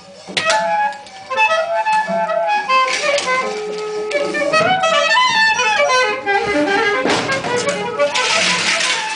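Free-improvised music: a wind instrument plays quick flurries of short notes over clanks and scrapes of metal percussion. A sharp hit comes just after the start, and a rush of noisy metallic scraping swells twice near the end.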